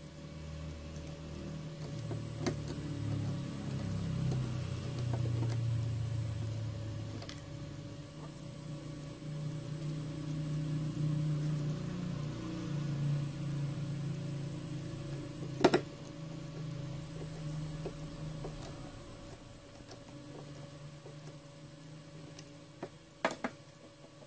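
Handling noise as a thermostat controller's circuit board is fitted into its plastic case: a few sharp clicks, the loudest about two-thirds of the way through and two close together near the end, over a low, uneven rumble.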